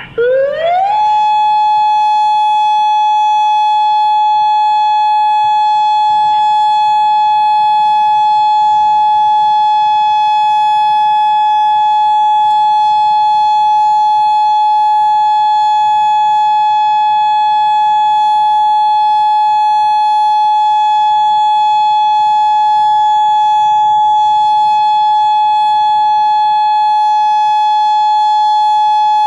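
Outdoor tornado warning siren winding up over about a second, then holding one steady, loud tone without wavering: the steady alert sounded for a tornado warning.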